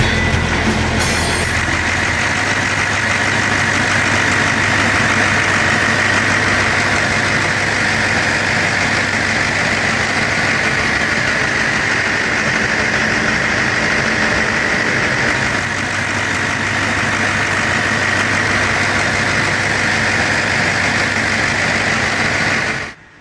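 Standby generator set's engine running steadily under no electrical load, a constant loud drone with a strong high-pitched component. It cuts off abruptly near the end.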